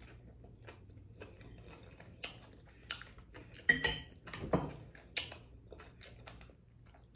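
Close-miked eating sounds: small clicks from chewing and handling food, with a metal fork clinking against the plate a few times about four seconds in.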